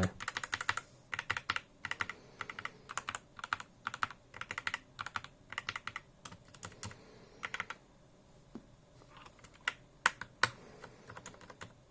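Typing on a mechanical keyboard with MX-style switches: quick runs of keystroke clicks and clacks, thinning out after about seven seconds to a few single key presses.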